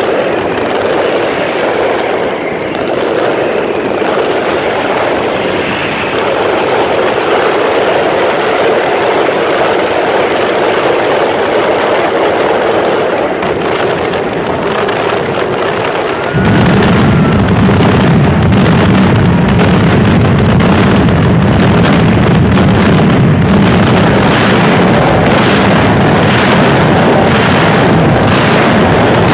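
Fireworks finale: a dense, unbroken barrage of bangs and crackling. About sixteen seconds in it gets louder and heavier, with a deep rumble.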